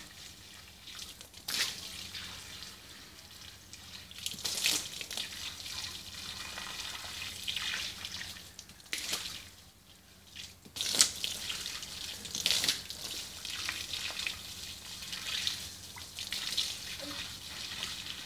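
A stream of water from a garden hose splashing onto wet concrete, rising and falling unevenly and dropping away briefly about halfway through.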